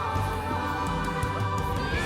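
Slow music with long held notes and a wavering sung line over them.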